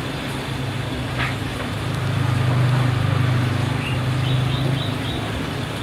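Steady low hum that swells for a couple of seconds near the middle, with a few short high chirps above it.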